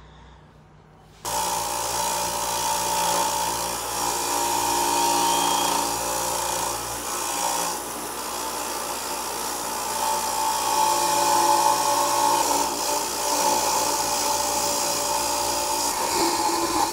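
Bench grinder with a brass wire wheel running and scrubbing carbon off a Toyota 1FZ-FE engine valve, the valve held against it in a cordless drill; a steady whirring scrape that starts suddenly about a second in.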